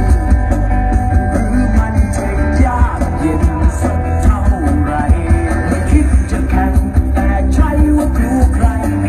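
Music with singing played loud through an open-air cinema's PA system of open-front 'butterfly' speaker cabinets, with heavy, continuous bass.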